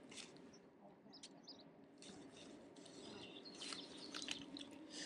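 Very quiet outdoor background with a few faint, short bird chirps and scattered light clicks and rustles, busiest about three to four seconds in.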